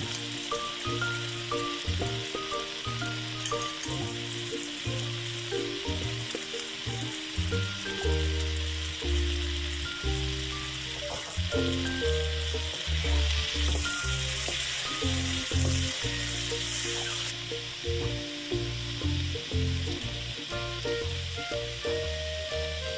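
Turkey mince and vegetable stir-fry sizzling in a pan, with now and then a stir. The sizzle gets louder for a few seconds past the middle and then drops back suddenly. Background music with a melody and bass line plays throughout.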